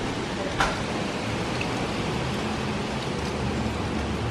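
Hurricane rain and wind making a steady rushing noise, with a short knock about half a second in.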